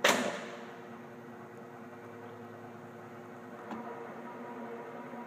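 Allen MAT drill press humming steadily, with a sharp clack from the machine right at the start that rings briefly. The hum picks up slightly and gains a higher tone a little before the end.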